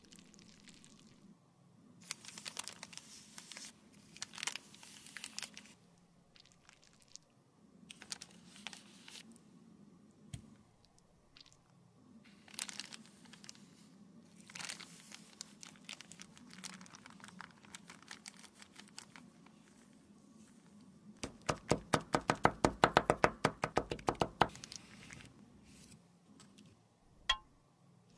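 Thin plastic bag crinkling and rustling as it is handled with liquid lipstick inside, with a loud quick run of crackling squishes, about eight a second for some three seconds, in the last third, and a single sharp click near the end.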